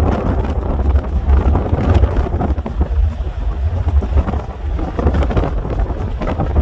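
Gusty wind buffeting the microphone: a heavy low rumble that swells and dips.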